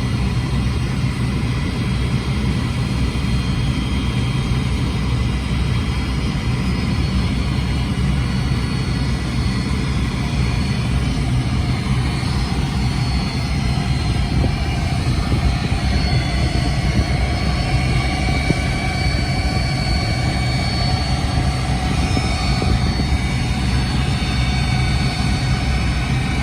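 Four jet engines of a Boeing 747 freighter running steadily: a deep continuous rumble with a high whine on top whose pitch drifts slightly in the second half.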